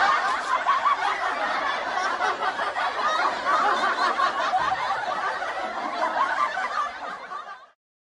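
Canned crowd laughter sound effect: many people laughing together, like a studio audience, fading out and stopping just before the end.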